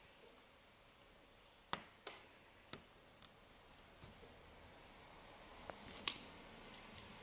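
Light clicks and taps from a crochet hook and weft thread being worked among the warp threads of a rigid heddle loom: about seven short clicks spread over a few seconds, the sharpest near the end.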